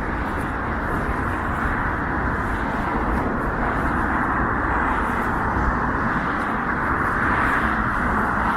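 Steady noise of busy road traffic, a continuous rush of passing cars with a low rumble.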